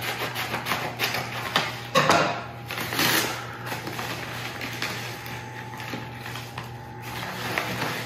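Scissors cutting into a padded paper mailer envelope, then the envelope's paper crackling and rustling as it is torn and pulled open by hand. The loudest rustles come about two and three seconds in.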